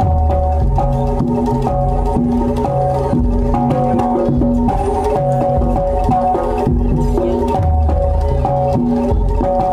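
Jaranan gamelan ensemble playing a steady, rhythmic piece: drum strokes and gong-chime beats under a melody of held notes that step from one pitch to the next.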